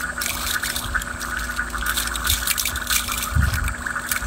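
Nylon fishing net rustling and scratching quickly as it pays out through a hand, towed off by a remote-controlled boat, over a steady high hum. A low wind rumble on the microphone comes in about three seconds in.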